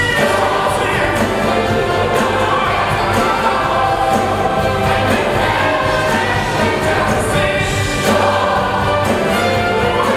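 Large gospel choir singing a Christmas gospel number with a full live band and orchestra: piano, Hammond organ, bass, drums and horns, the drums keeping a steady beat.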